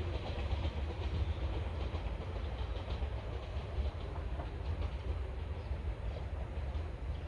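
Shinano Railway 115-series electric train running along the track: a steady low rumble with faint repeated clicks from the wheels, growing slightly quieter toward the end.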